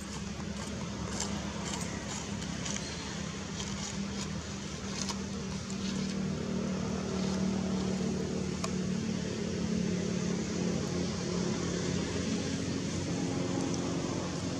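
A motor vehicle engine running steadily, its low hum growing somewhat louder in the second half, with a few faint high clicks in the first few seconds.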